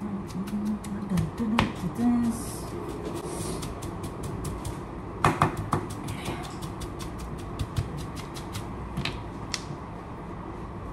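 Knife chopping onions on a plastic cutting board: quick, irregular taps of the blade, sparse at first and coming fast and dense in the second half.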